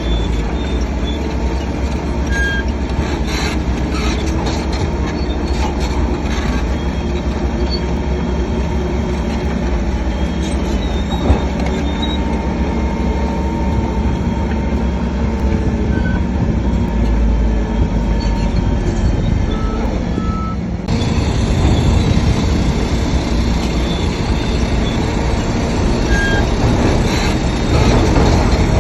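Shantui crawler bulldozer working: its diesel engine runs under load with a heavy rumble while its steel tracks squeal and clank. The sound shifts abruptly about two-thirds of the way in.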